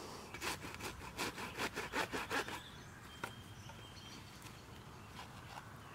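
A blade sawing back and forth in about a dozen quick strokes, about five a second, lasting about two seconds. A single sharp click follows about a second later.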